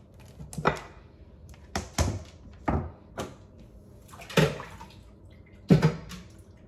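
Kitchen clatter: a string of about six sharp knocks and clunks, some in quick pairs, as kitchen items are handled and set down.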